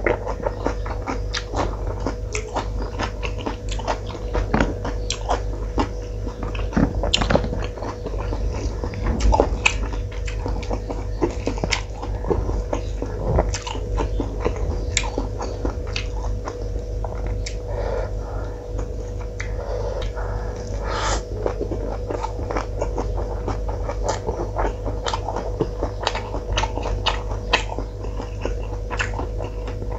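Close-miked chewing and wet mouth clicks of a man eating rice and curry by hand, several clicks a second throughout. A steady low hum runs underneath.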